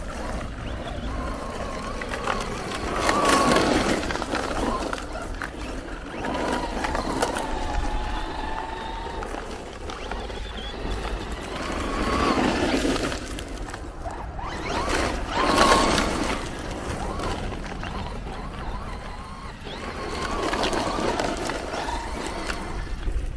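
Traxxas Rustler 4x4 VXL RC stadium truck driving hard on loose gravel, its brushless motor whining up and down. Gravel crunches and sprays under the tyres in about five louder passes.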